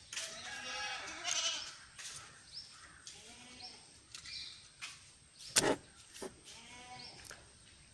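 An animal bleating three times in the background, each call a wavering pitched cry, with a single sharp click about five and a half seconds in.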